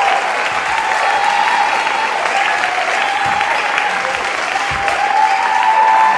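Theatre audience applauding steadily at the end of a performance.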